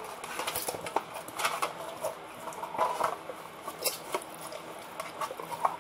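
Hands rubbing and squeezing marinade into a raw whole chicken: irregular wet squishes and small slaps of skin.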